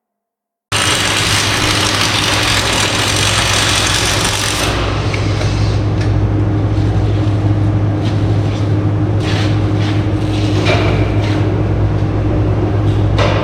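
Electric arc welding: a steady hiss and crackle over a deep electrical hum, starting abruptly just under a second in. From about halfway the hiss softens and sharper crackles and pops stand out.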